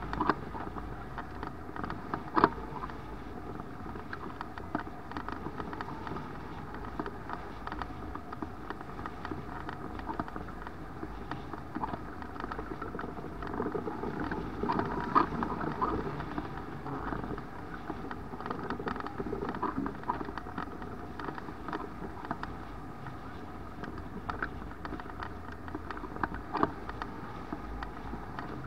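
Airflow rushing over a camera mounted on a hang glider in flight: steady, muffled wind noise with scattered sharp clicks and pops, the strongest about two seconds in.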